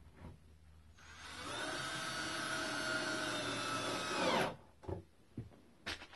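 Cordless drill driving a drywall screw into a wooden brace: the motor winds up about a second in, runs steadily under load for about three seconds, then stops abruptly. A few light clicks follow.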